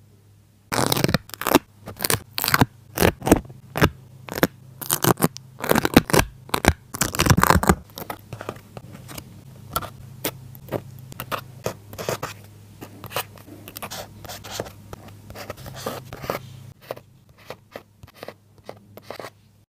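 Paper and stickers being handled on a journal page: quick scraping and tearing strokes. The strokes start about a second in, come loud and dense for several seconds, then turn into lighter, sparser scratches.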